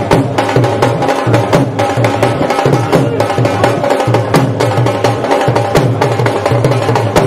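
Dhol drums played live in a fast, steady rhythm: deep, booming bass-side beats with sharp stick cracks over them.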